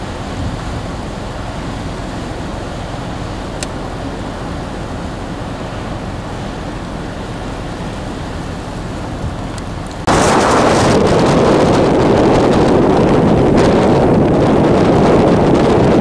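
Blizzard wind blowing steadily. About ten seconds in it cuts abruptly to much louder wind rushing and buffeting the microphone.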